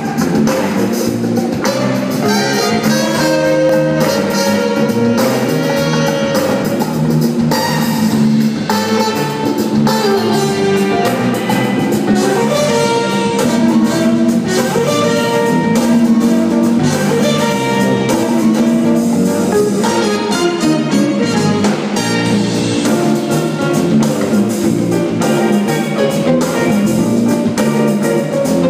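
Live jazz-funk band playing an uptempo groove, with electric bass, drum kit and congas, heard from the audience in a reverberant hall.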